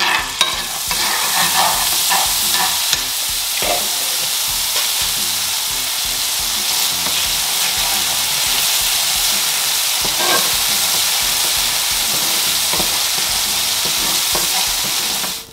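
Haitian épis seasoning sizzling in a hot nonstick frying pan as a steady hiss, with a few scrapes of a wooden spoon stirring it. The sizzle starts and cuts off abruptly.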